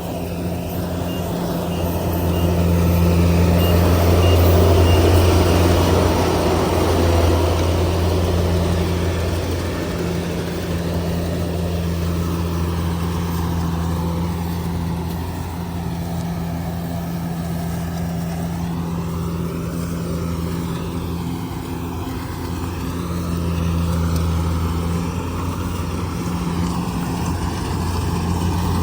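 Kubota DC70G Plus combine harvester's diesel engine running steadily with a deep drone, swelling a little louder a few seconds in.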